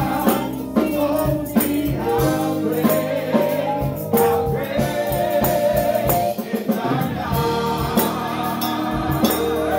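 Gospel worship song: a woman leading and backing singers singing into microphones over instrumental accompaniment with a steady percussive beat.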